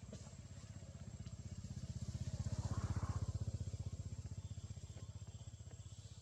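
A motor vehicle's engine passing by: a low, rapid, even pulsing that grows louder to a peak about three seconds in, then fades away.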